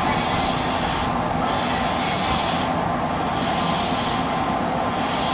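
Odakyu 1000 series electric train with a Mitsubishi SiC VVVF inverter, heard from inside the car as it starts off from the station. A steady electrical tone and hum run under the train noise, with rushes of hiss that come and go every second or so.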